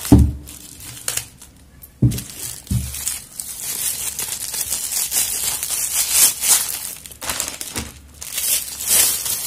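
Clear plastic wrapping crinkling and tearing as it is pulled off a miniature cricket bat. A few low knocks of handling come in the first three seconds.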